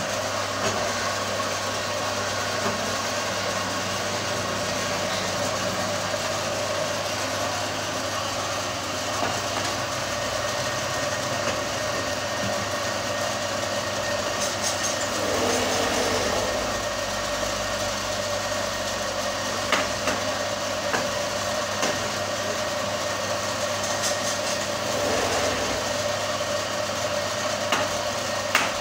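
Wood lathe's motor running steadily with a constant hum, and a few sharp clicks or knocks in the second half.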